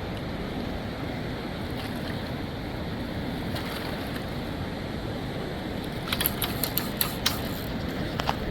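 Steady rushing noise of river water with wind on the microphone, with a quick run of sharp clicks about six to seven and a half seconds in.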